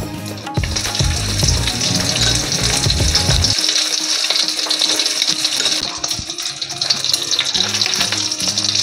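Breaded egg balls deep-frying in hot oil in a kadai, with a steady, dense sizzle. Background music plays over the first few seconds and stops abruptly.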